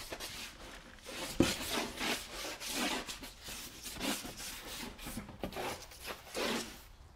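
A long-handled paintbrush loaded with black paint swishes across paper pinned to a wall in a string of quick strokes, with a sharp tap about a second and a half in.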